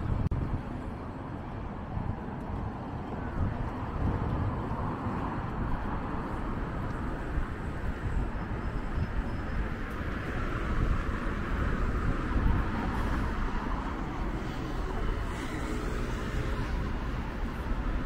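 City street ambience: a steady hum of road traffic from cars passing on a multi-lane road.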